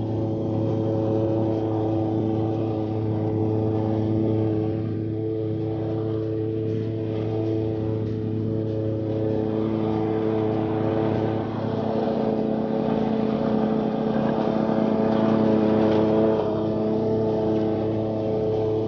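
Walk-behind gas lawn mower engine running at a steady speed, a little louder for a few seconds past the middle.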